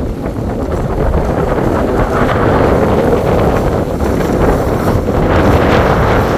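Loud, steady wind noise buffeting the microphone.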